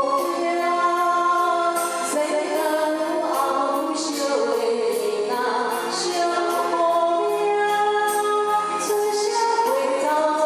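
A woman singing a Taiwanese-language ballad into a handheld microphone over instrumental accompaniment with a steady beat.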